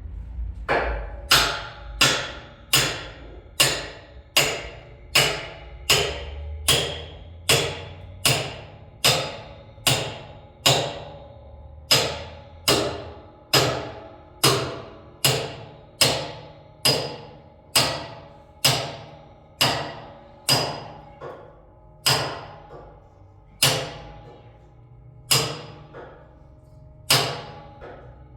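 Steady hammer blows on metal, about four strikes every three seconds, each sharp knock ringing briefly, as a part of a carpet cleaning machine is hammered during repair. There are a couple of slightly longer pauses between strikes near the end.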